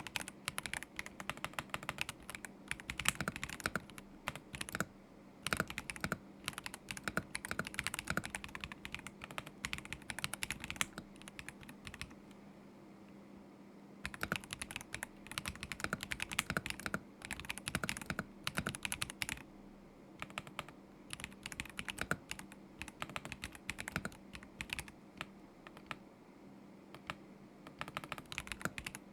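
Typing on a KZZI K75 Pro mechanical keyboard with Moment linear switches: runs of quick keystrokes broken by short pauses, the longest about two seconds, near the middle and again near the end.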